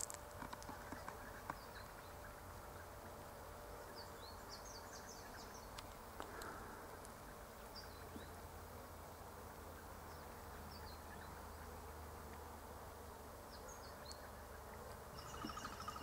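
Faint steady buzzing of bees working the almond blossom, with scattered short, high bird chirps over it.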